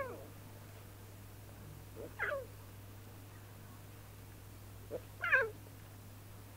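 Lion cubs mewing: three short calls that fall in pitch, one at the start, one about two seconds in and the loudest about five seconds in, over a steady low hum.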